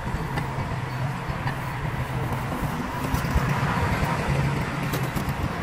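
A motor vehicle's engine running steadily with a low hum, with a few light clicks near the end.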